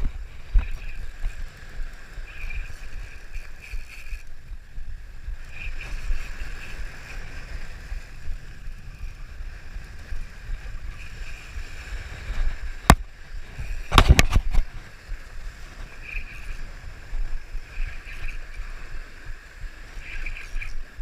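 Outdoor rumble of wind and water, with a faint high buzzing that swells and fades. One sharp click about 13 seconds in is followed about a second later by a quick cluster of knocks, during the fight with a hooked snook.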